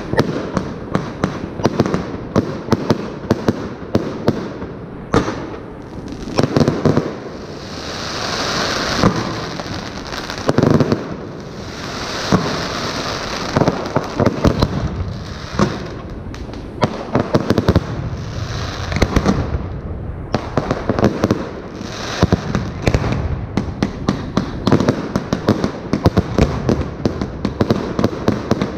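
Fireworks display: rapid, repeated bangs of shells and bursts firing and exploding, with dense crackling, and sustained hissing around a third of the way in and again past halfway.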